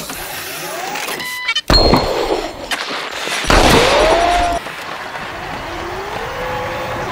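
Humanoid robot's joint motors whining in several rising glides, with two heavy thumps: one about two seconds in and a longer, clattering one about three and a half seconds in.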